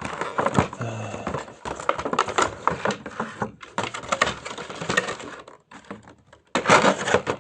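Plastic toy packaging and small plastic parts being handled and opened by hand: irregular crinkling, rustling and clicking. A short lull comes about six seconds in, followed by a loud burst of crinkling.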